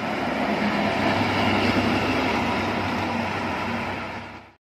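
A tour bus and a heavy truck passing at speed: a steady engine drone under tyre noise, fading out near the end.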